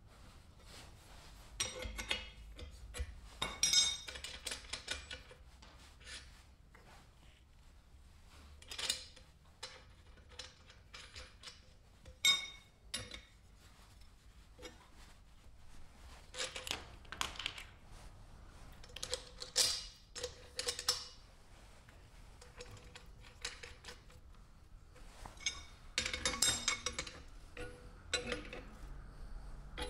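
Open-end steel wrench clinking and tapping against the hex nut and bolt of a bearing wheel's axle as the nut is tightened, in scattered irregular metallic clicks.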